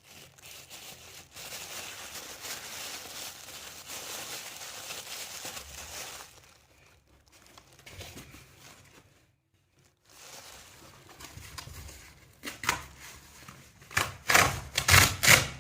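Packing material rustling and crinkling as a heater controller is wrapped for shipping. After a quieter pause, a run of loud, sharp ripping or tearing sounds comes near the end.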